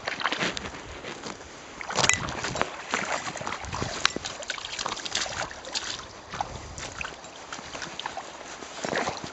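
Shallow water splashing and sloshing around a landed trout as it thrashes at the river's edge. The splashes come in irregular bursts, the loudest about two seconds in.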